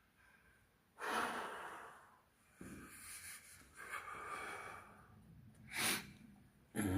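A person breathing hard: several loud, noisy breaths, the first about a second in, and a short sharp one near six seconds in.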